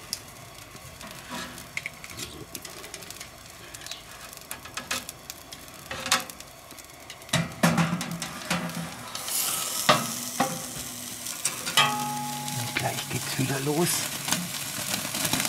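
Wagyu flank steak sizzling and crackling on a Steakburner's steel tray under its glowing top burner, with a few sharp metallic clicks. The sizzle grows louder about nine seconds in as the steak goes back under the heat.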